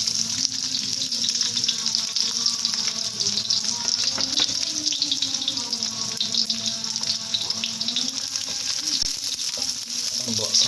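Food sizzling in hot cooking oil in a pan for a stir-fry, a steady hiss dotted with small crackles and spatters, over a low steady hum.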